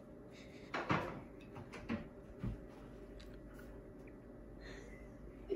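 A few light knocks and clatters of cupcakes and a plastic plate being handled on a table, the loudest about a second in, over quiet room tone.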